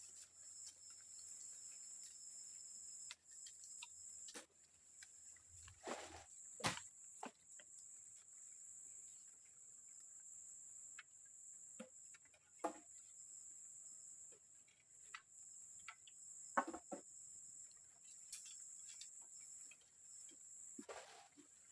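Steady high-pitched drone of forest insects such as crickets or cicadas, with scattered short knocks and rustles from hands working wood and bark.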